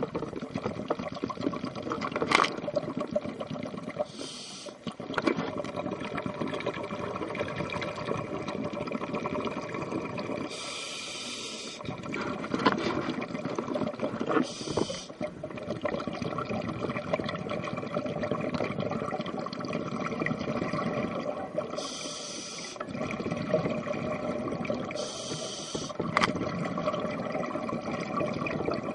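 Scuba diver breathing through a regulator underwater: several hissing inhalations, each about a second long, with bubbling exhalations between them. Two sharp clicks stand out.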